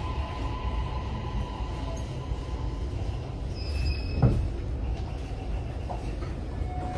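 Electric train heard from inside the car as it pulls into the terminus: a steady low rumble with a faint whine that fades out in the first couple of seconds, and a single thump a little past four seconds in.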